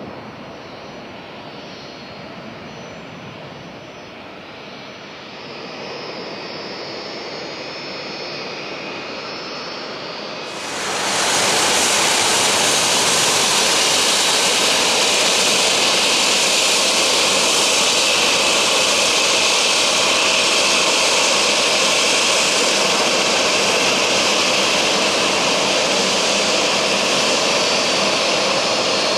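Boeing 757-200F jet engines taxiing, a steady jet hiss and whine. About ten seconds in, the sound jumps suddenly to much louder, a steady full rush of jet noise as the aircraft passes close.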